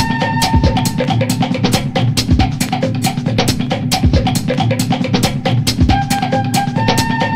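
Background music with a steady drum-kit beat and a few held melodic notes.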